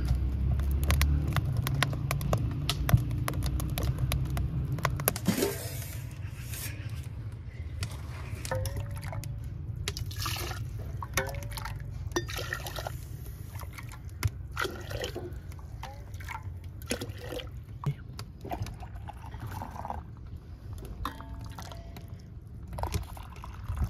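Water poured from a jug and ladle into a hot, steaming steel cooking pot, splashing and dripping. In the first few seconds there is a steady low rumble with many small clicks.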